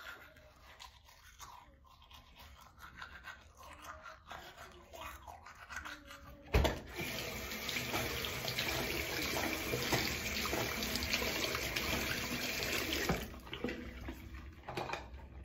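A manual toothbrush scrubbing faintly, then a sharp knock about six and a half seconds in. After the knock a tap runs into a bathroom sink for about six seconds, rinsing, and then shuts off.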